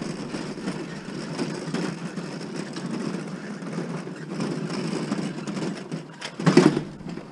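Hand truck loaded with an old electric stove rolling over wet asphalt: a steady rumble from the wheels, with a louder clatter about six and a half seconds in.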